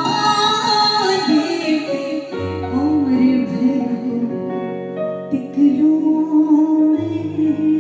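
Soft unplugged song: a female voice carries a wavering melody without clear words over sustained low accompaniment notes that change every few seconds.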